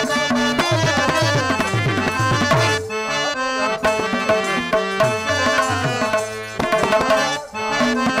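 Instrumental drama music: tabla strokes under sustained reed-keyboard melody from a harmonium.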